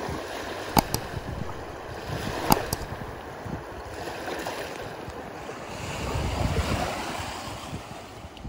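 Small waves washing in and lapping over a sandy shore, with wind on the microphone; the surf swells a little near the end. A few sharp clicks stand out in the first few seconds.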